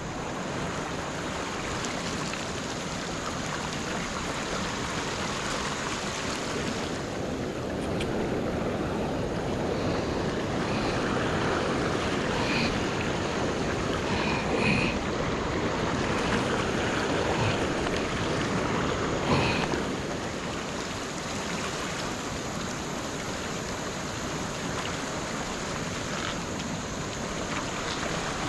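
Fast river current rushing steadily, a continuous broad water noise that swells a little in the middle. A few faint, short high chirps sound about halfway through.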